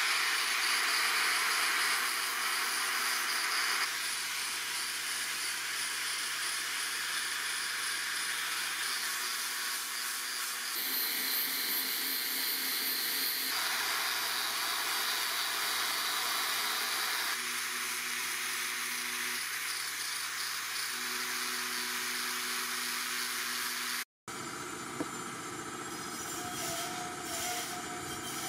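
Angle grinder running against the edge of a steel sword blade: a steady hissing whine, broken into several short clips that change abruptly. A few seconds before the end it cuts out and a quieter, different background follows.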